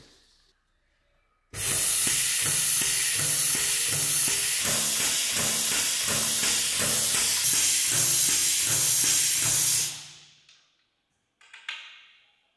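Pumped oil-dispensing system feeding engine oil through a metered dispensing gun into the engine. It makes a loud steady hiss with a low pulsing pump beat under it, starting abruptly about a second and a half in and cutting off near the end.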